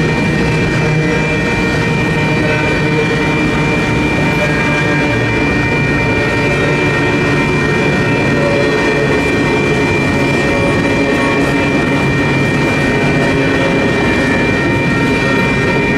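Empty intermodal well cars of a freight train rolling through a grade crossing, a steady rumble and rattle of wheels and cars, with the crossing's WCH electronic bells ringing steadily over it.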